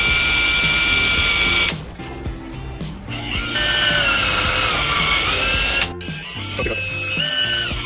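Cordless drill running in three short bursts at a hinge on a wooden cabinet door, its whine sagging in pitch near the end of the second burst.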